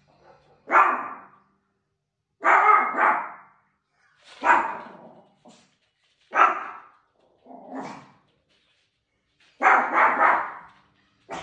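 A small Maltese dog giving angry barks: about six sharp barks, a couple of them doubled, one to two seconds apart, with a weaker one near the middle.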